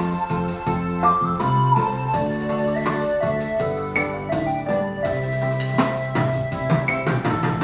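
Kurtzman K350 arranger keyboard playing a held melody line over bass notes and a steady drum beat from its automatic bolero style accompaniment.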